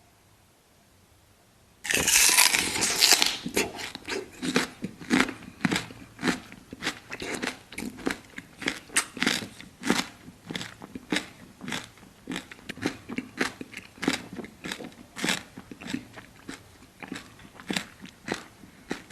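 Close-miked eating: after a brief hush, a loud crunchy bite into food about two seconds in, then steady crunchy chewing at about two chews a second.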